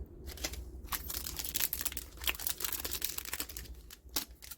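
Crinkling of a foil trading-card booster pack wrapper being handled and opened, a dense run of crackles.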